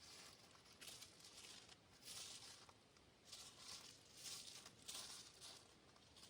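Faint rustling: a series of soft, hissy swishes, about one every second.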